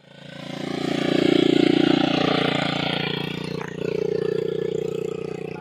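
Small quad bike engine running as the bike is ridden, fading in over the first second, dipping briefly a little past halfway, then picking up again.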